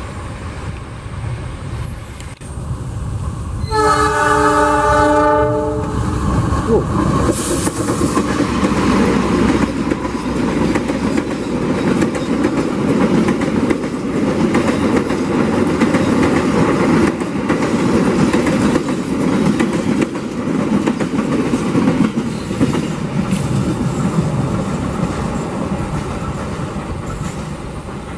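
A CC206 diesel-electric locomotive sounds its horn once, a blast of under two seconds about four seconds in. The locomotive and its long line of passenger coaches then roll past with a loud, steady rumble of wheels on the rails, which fades near the end.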